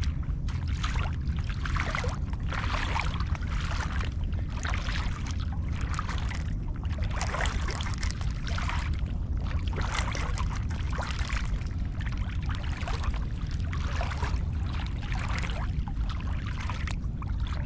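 Footsteps wading through shallow seawater, a slosh or splash with each stride about once a second, over a steady low rumble.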